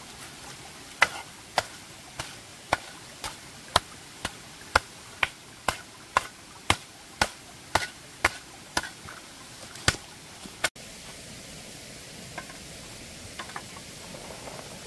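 Wet clay mud being worked and packed down with rubber boots and a shovel: a steady run of sharp slaps about two a second, which ends abruptly about ten seconds in. A quieter outdoor stretch follows, with a few faint ticks.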